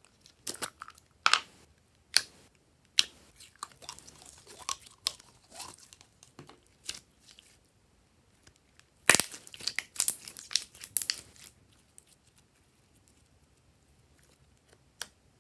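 Clear blue slime squeezed from a squishy container, stretched and pressed by hand: sticky crackles and pops, densest about nine to eleven seconds in, then only faint handling.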